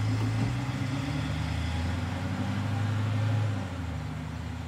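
Car driving along at a steady speed: a steady low engine hum over tyre and road noise, easing slightly about three and a half seconds in.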